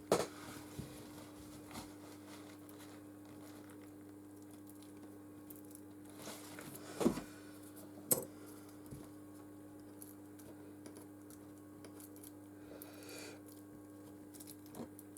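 Old battery adhesive being peeled and scraped off a smartphone's housing: faint crinkling and tearing, with a few sharp clicks of a tool against the phone, the loudest two about seven and eight seconds in, over a steady low hum.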